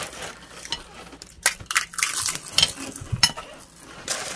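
Metal spoons clinking and scraping against china plates and glass bowls as fuchka are filled, with crisp puri shells being cracked open by hand: an irregular run of short sharp clicks and knocks.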